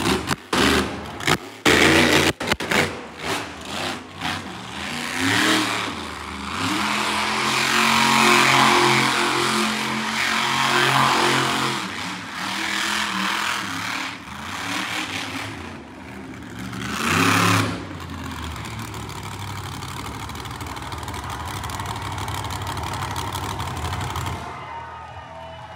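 Monster truck engine revving hard in repeated surges, with a run of sharp knocks in the first few seconds. It then settles to a steady, lower running note for the last third, until the sound cuts off.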